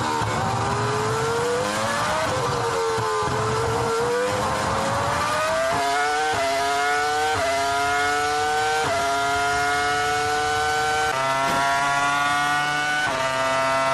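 Ferrari F2004 Formula One car's V10 engine heard onboard. It comes down in pitch through a corner, then accelerates hard up through the gears: about six quick upshifts, each a sudden drop in pitch followed by a steady climb.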